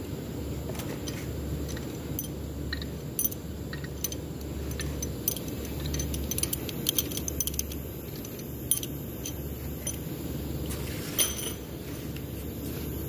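Metal hand tools and bolts clicking and clinking against engine parts during a top-end teardown: scattered sharp clinks, thickest in the middle, with a louder one near the end, over a steady low hum.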